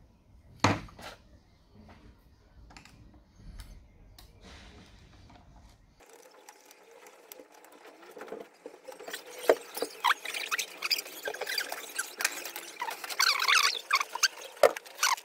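Metal fork mashing kiwi pieces in salt water in a glass Petri dish: wet squelching with quick clicks and squeaky scrapes of the fork against the glass, busier in the second half. One sharp knock near the start.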